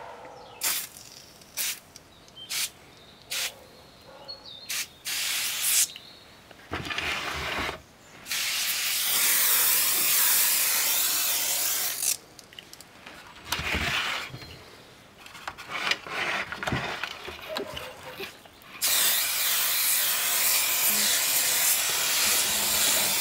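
Aerosol can of foam cleaner spraying: a few short hissing bursts, then long sprays of several seconds, the longest near the end, as foam builds up over a motorcycle helmet shell.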